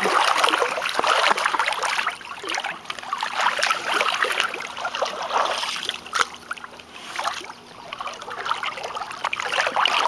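Pool water splashing and sloshing in irregular surges as a person moves about in a backyard above-ground swimming pool.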